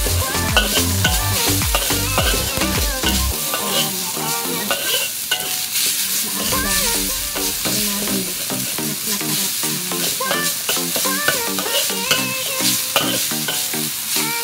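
Minced pork sizzling in a hot wok while a metal spatula stirs and scrapes it across the pan, under background music whose bass drops out about three seconds in.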